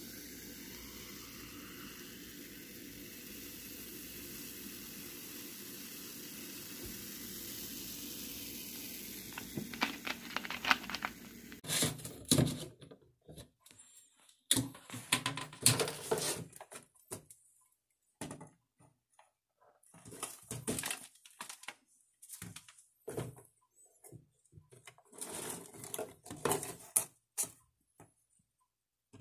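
Carbonated cola poured from a plastic bottle over ice cubes into a glass mug: a steady fizzing pour that grows slightly louder for about twelve seconds. It then stops suddenly and gives way to scattered sharp clicks and short crackles with silences between them.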